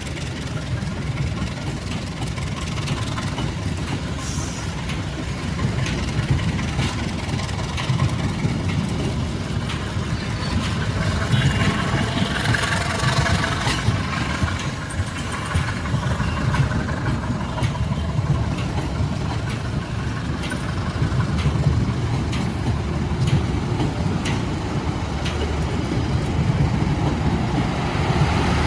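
A train running on the rails: a steady low rumble with irregular clicks and knocks from the wheels and cars, and a faint metallic squeal about halfway through.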